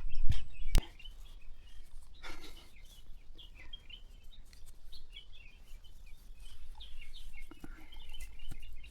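Small birds chirping over and over, over a steady low rumble. A couple of knocks and a sharp click come in the first second.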